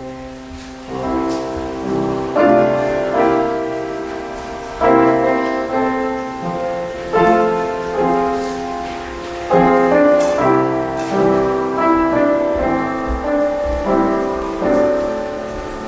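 Piano playing slow offertory music, full chords struck every two seconds or so, starting about a second in.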